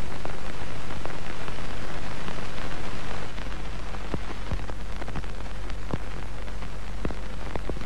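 Old film crackle and hiss: a steady hiss with irregular pops and clicks over a low hum, the noise of a worn film soundtrack. It eases slightly about three seconds in.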